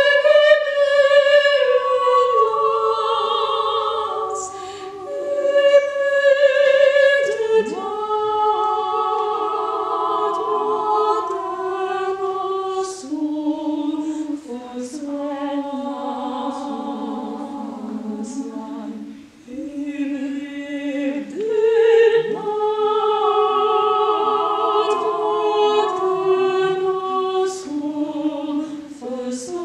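A small ensemble of unaccompanied women's voices singing contemporary choral music in sustained, close-stacked chords, with a brief break about nineteen seconds in.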